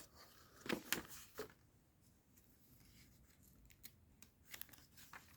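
Small plastic Lego Technic pieces being handled and pushed together: a few sharp clicks about a second in, then fainter ticks and rustling.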